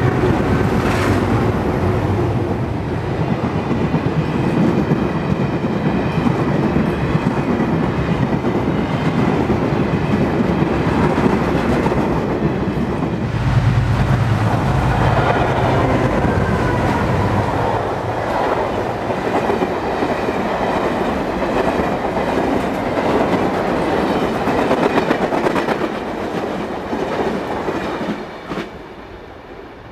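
NSW 80 class diesel locomotives working an oil train past. About halfway through comes a pair of 48 class diesels, their engines running as they approach and pass. A long string of tank wagons follows, clattering over the rail joints, with the sound fading near the end.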